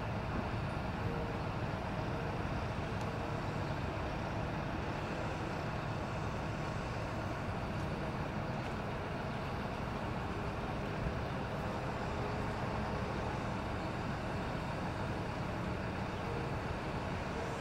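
Large mobile crane's diesel engine running steadily.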